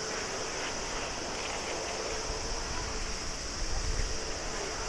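Airbus A321neo's jet engines at taxi idle: a steady hiss with a high whine on top. A low wind rumble on the microphone swells about three and a half seconds in.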